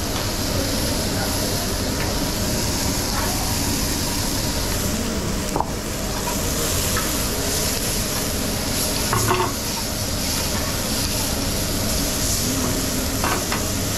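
Meat, shrimp and vegetables sizzling on a teppanyaki flat-top griddle, a steady frying hiss. A few short clicks of the chef's metal fork and spatula against the griddle come through, one about halfway through and others later.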